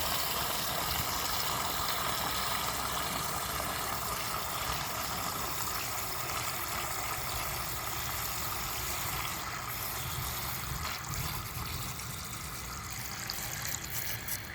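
Water running steadily in a vintage cast-iron toilet cistern as it is tried out, easing off a little near the end.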